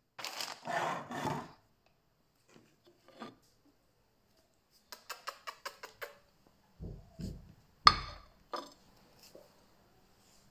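A china plate handled and set down on a wooden floor. The loudest sound is a single sharp clack a little before eight seconds in, after a quick run of light clicks and a couple of soft low thumps. Three short noisy bursts come near the start.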